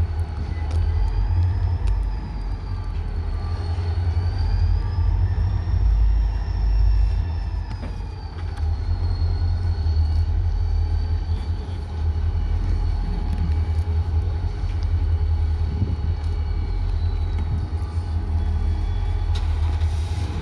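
Alaska Railroad diesel locomotives of a moving cargo train, giving a steady deep rumble. A thin high whine slowly rises and falls above it.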